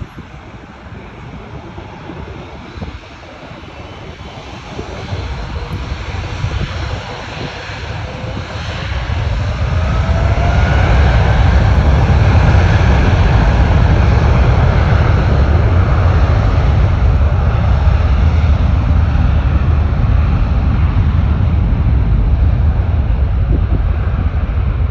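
Airbus A350's Rolls-Royce Trent XWB jet engines at takeoff thrust. The roar grows louder over several seconds with a faint rising whine, then holds as a loud, steady, deep rumble.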